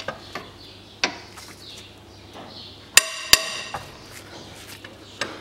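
Socket wrench with extension and universal joint clinking against metal while a very tightly fastened alternator-bracket bolt is worked loose: a few light clicks, then a loud ringing metallic clank about three seconds in, followed by a sharp knock.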